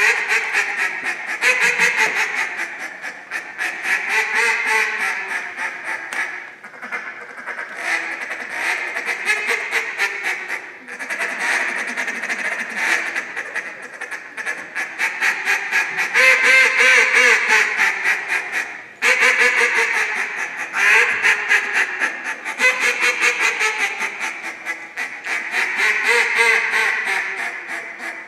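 Duck call blown by a contest caller, imitating a live duck: strings of quacks mixed with fast clicking chatter, going on almost without a break, with a few short pauses.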